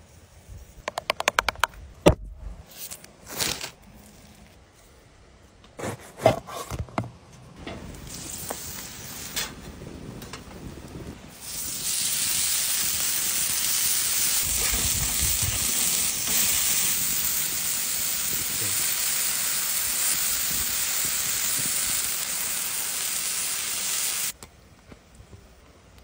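Raw beef burger patties sizzling on a hot griddle plate over a charcoal grill, a loud, steady sizzle for about twelve seconds that cuts off suddenly. Before it comes a run of quick clicks and knocks.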